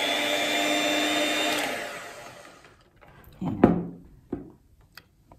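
Electric hand mixer running steadily with a high whine as it beats a margarine-and-milk filling in a glass bowl. It is switched off about a second and a half in and winds down, followed by a few short knocks as the mixer is handled.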